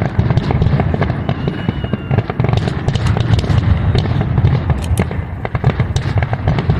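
Fireworks finale barrage: a dense, rapid string of overlapping shell bursts and crackles over a continuous low rumble of booms, with no gap between them.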